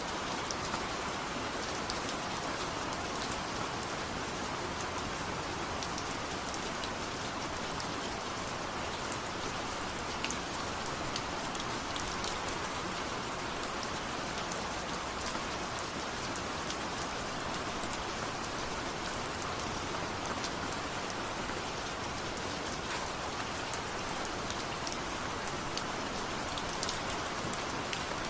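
Steady rain falling, with individual drops pattering and ticking against a surface now and then.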